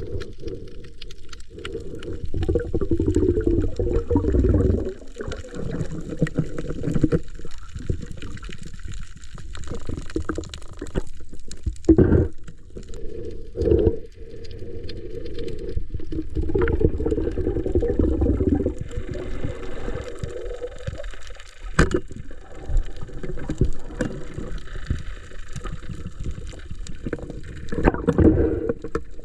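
Muffled water sloshing and bubbling around a swimmer's camera in the sea, uneven in strength, with a few sharp knocks.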